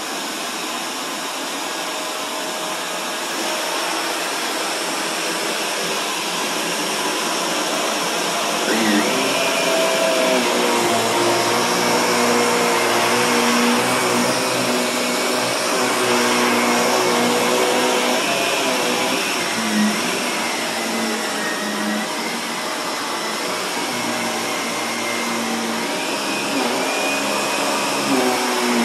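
Upright vacuum cleaner running over a rug, sucking up fine dirt and grit. About nine seconds in, a hum joins the steady rush of air and wavers up and down in pitch as the vacuum works across the rug.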